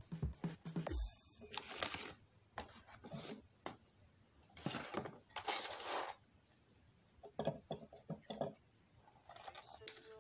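Eating sounds: French fries being chewed, with irregular short crunches and rustles from the paper fries carton being handled.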